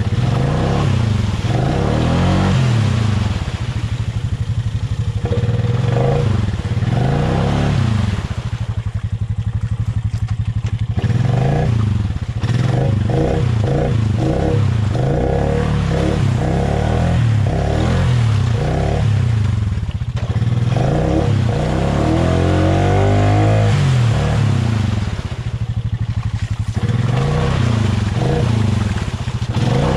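Honda ATV engine revving up and falling back again and again, every second or two, as it is ridden through deep mud, with one longer climb in revs about two-thirds of the way through.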